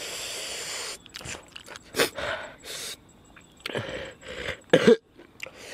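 Eating noises from a man eating spicy shellfish salad. It opens with a long hissing breath lasting about a second, then short irregular chewing and mouth noises and quick breaths, with a couple of sharper ones near the end.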